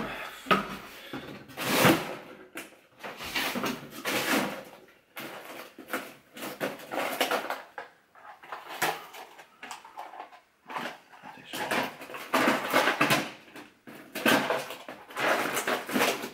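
Rummaging in a freezer drawer for frozen fruit: an uneven run of rustles, knocks and clatters as the drawer is worked and its contents are shifted about.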